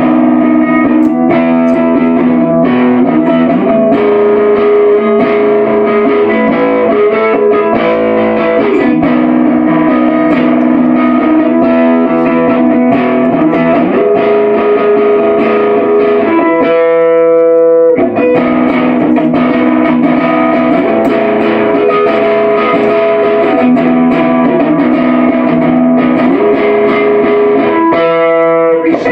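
Live emo rock on electric guitar run through effects and distortion, an instrumental opening with held chords that change every few seconds. Twice, about two-thirds of the way in and again near the end, the lower parts drop out for about a second, leaving one chord ringing alone.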